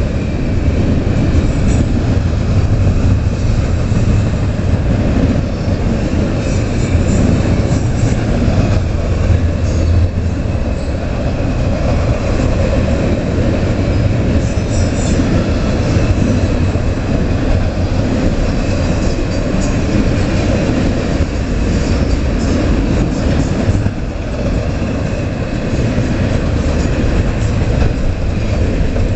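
CSX freight train's cars rolling past: a steady rumble of steel wheels on the rails, with short high wheel squeals a few times.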